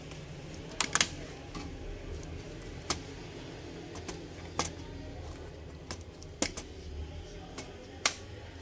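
Dell Inspiron 14-3452 laptop keyboard being pried out of its frame: irregular sharp plastic clicks and snaps as its latches let go, a few seconds apart.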